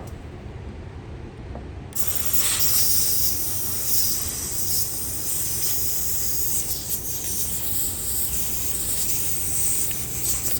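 Compressed air hissing from a nearly empty can of compressed air, blasted into the joints of a slipjoint knife to flush out oil and grime. The hiss starts about two seconds in after a single click, runs high and steady with small dips for about eight seconds, and stops near the end.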